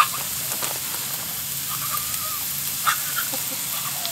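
Ground beef sizzling on a Blackstone flat-top griddle, with a few sharp clicks of a metal spatula on the griddle plate: the loudest right at the start, another about three seconds in.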